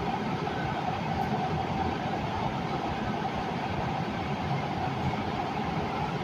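LA Metro K Line light-rail train running at speed through a tunnel, heard from inside the car: a steady rumble of wheels on rail with a steady hum in the middle range.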